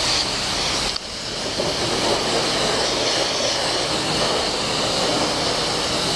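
High-pressure car-wash wand spraying water onto a dirt bike's rear wheel and the concrete floor: a steady hiss of spray, with a brief dip about a second in.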